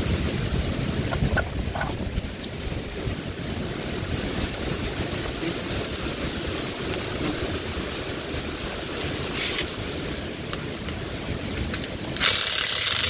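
Gas torch flame running steadily, heating a seized ball-joint bolt on the wishbone so that it can be freed. Near the end a much louder hiss begins.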